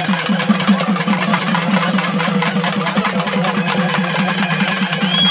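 Procession drums played by hand in a fast, driving beat, about six strokes a second, with a dense rattle of other drums over it. A high whistle starts near the end.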